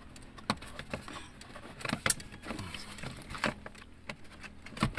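Plastic A-pillar trim of a Suzuki Celerio handled against the pillar, giving scattered light clicks and taps as the trim is repositioned.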